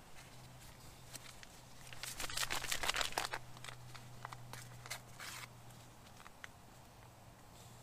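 A paper cocoa packet crinkling as it is handled, a dense run of crackles about two seconds in followed by a few scattered clicks, over a faint steady low hum.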